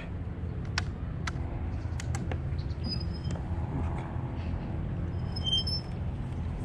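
Steady low hum of a bow-mounted electric trolling motor running. A few sharp clicks in the first two seconds, and thin high chirps around the middle and again near the end.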